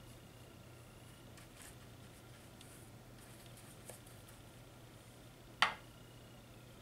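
Faint soft brushing of a watercolour paintbrush on a textured paper page over a low steady hum, with a small tick midway and one sharp click near the end.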